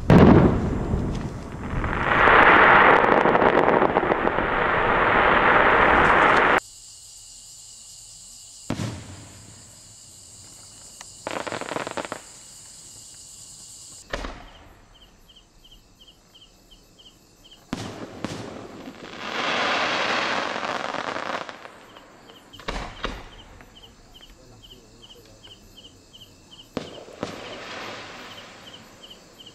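Aerial firework shells bursting: a bang, then about six seconds of dense crackling from two 6-inch crackling crossette shells fired together, which cuts off suddenly. Several more shell reports and shorter bursts of crackling follow, with crickets chirping steadily in the background from about halfway in.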